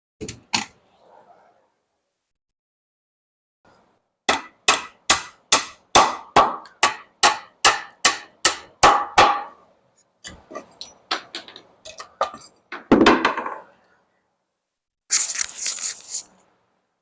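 Hammer driving a nail into wooden wall framing: a steady run of about a dozen blows, a little over two a second, followed by lighter, irregular taps and knocks.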